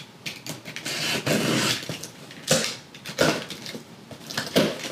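Utility knife slicing through the tape on a cardboard box, then the cardboard flaps being pulled open: irregular scraping and rustling with a few sharp cracks.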